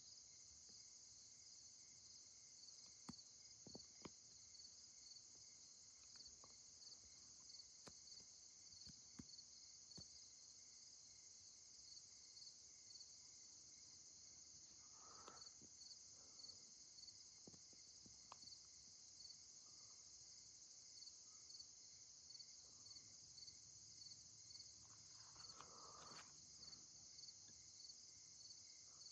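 Faint, steady night insect chorus: a continuous high-pitched trilling with a fast, even pulse. A few faint ticks and two soft, brief sounds come through it, around the middle and near the end.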